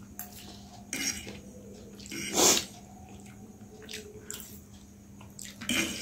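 Close-up eating sounds of instant noodles being slurped off a fork and chewed: a few short wet slurps and mouth smacks, the loudest about two and a half seconds in, over a faint steady hum.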